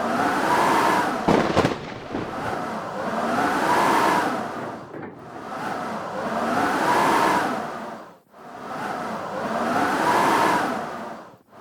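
Howling blizzard wind coming in gusts about every three seconds, each gust rising and then falling in pitch. There is a sharp knock about a second and a half in.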